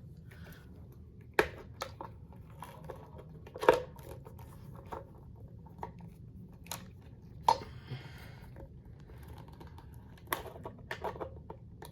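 Scattered clicks and knocks of small metal and plastic parts being handled as a ceiling fan light kit is screwed onto the switch housing, the loudest about a third of the way in. A low steady hum runs underneath.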